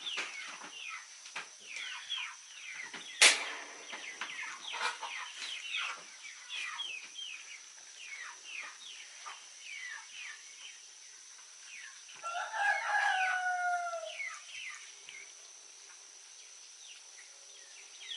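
Chickens chirping and clucking over and over, with a rooster crowing once, a long call falling in pitch, about twelve seconds in. A single sharp knock sounds about three seconds in.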